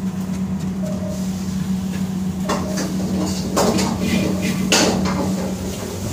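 Kitchen utensils clinking and knocking against metal cookware in an irregular run of sharp strikes that begins about two and a half seconds in, over a steady low hum.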